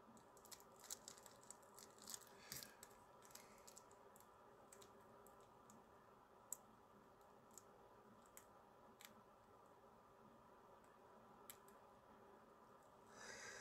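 Near silence: quiet room tone with scattered faint, sharp clicks and taps, a cluster of them in the first few seconds, then a few isolated ones.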